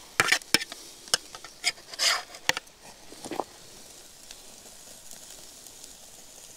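A cooking utensil clicks and scrapes against a metal grill grate a dozen or so times over the first three seconds. After that comes a faint, steady sizzle of cheeseburgers cooking over the fire pit.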